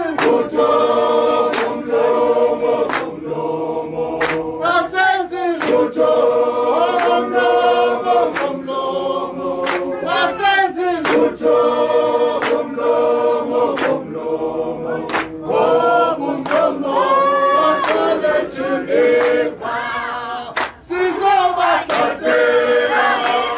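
A group of men and women singing a struggle song together, unaccompanied, in long held phrases with short breaks. A sharp regular beat runs under the singing.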